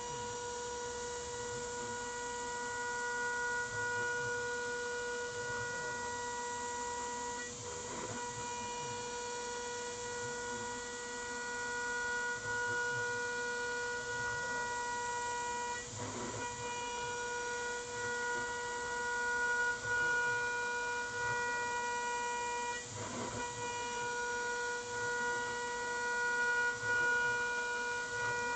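A CNC 6040 router's spindle at 28,000 rpm is milling 5083 aluminium with a 4 mm single-flute end mill. It makes a steady, high-pitched cutting whine with overtones, which breaks off briefly three times as the cutter's engagement changes.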